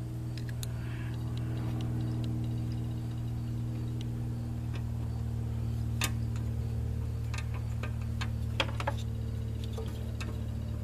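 A steady low hum, with a few scattered light metallic clicks of bolts being set in by hand around a transmission cover.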